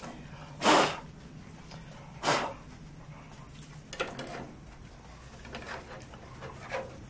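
Hard plastic clock parts being handled: the frame knocking and scraping against the housing, with two louder knocks near the start and a few lighter clicks after.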